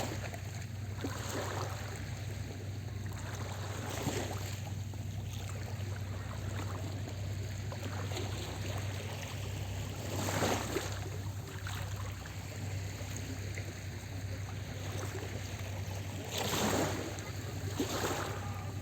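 Small sea waves washing onto the shore, each coming in as a brief swelling rush, about six times, over a steady low hum.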